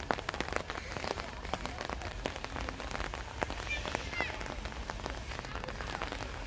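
Steady autumn rain falling, with many close individual raindrops tapping.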